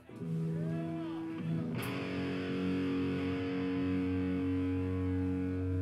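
Distorted electric guitars through amplifiers holding ringing chords as a rock song starts; about two seconds in, a brighter, hissier wash joins and the sound fills out.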